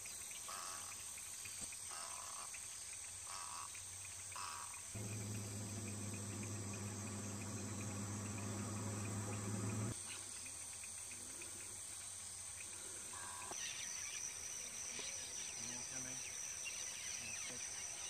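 Insects trilling steadily at a high pitch, a second high steady trill joining about three-quarters of the way through. A few short calls about a second apart in the first few seconds, and a low steady hum for about five seconds in the middle.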